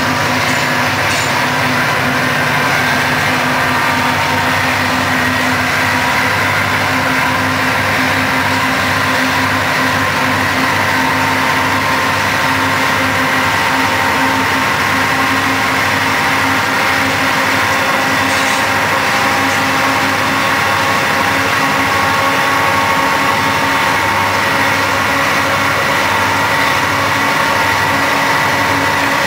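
Diesel-electric freight locomotives running under power at speed, a steady engine drone with a faint whine, blended with the road and wind noise of a vehicle pacing alongside.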